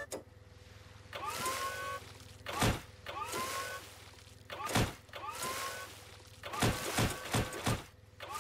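Cartoon forklift driving forward with a rising electric motor whine, then a heavy thud as its forks ram into the whale's body. This repeats about every two seconds, ending in a quick run of four thuds near the end.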